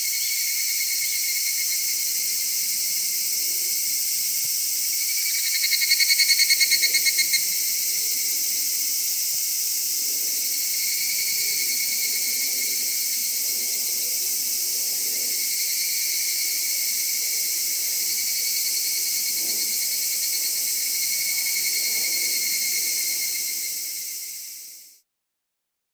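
Steady, high-pitched chorus of singing insects. A louder, rapidly pulsed call rises out of it for about two seconds around six seconds in, and the whole chorus fades out near the end.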